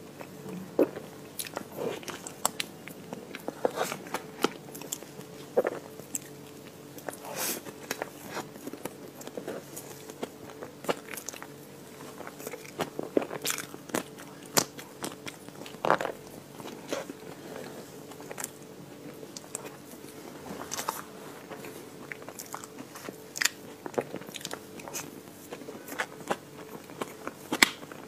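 Close-up biting and chewing of a crumbly chocolate ice cream cake: irregular sharp crunches between softer chewing, over a faint steady hum.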